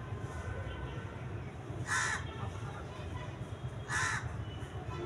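A crow cawing twice, each caw short, about two seconds apart, over a low steady rumble.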